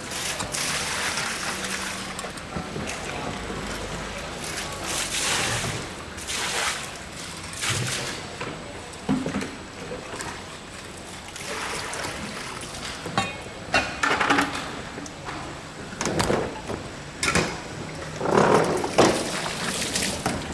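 Mahi-mahi being filleted with a knife on a plastic cutting board, with repeated bursts of splashing water as the fish and board are rinsed, and sharp knocks as the fish is handled and turned over.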